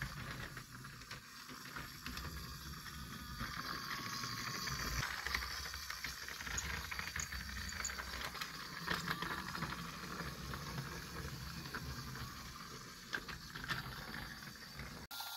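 Battery-powered Trackmaster Boco toy engine running on plastic track: a faint, steady small-motor whir with light wheel and gear rattle, working normally.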